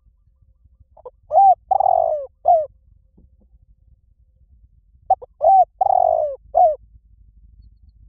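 Spotted dove cooing: two phrases about four seconds apart, each a few short coos around a longer note that falls in pitch.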